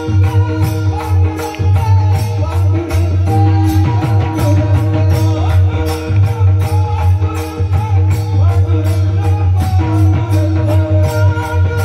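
Loud music with a fast, even percussion beat of about four strokes a second, jingling like a tambourine, over sustained tones and a heavy low bass.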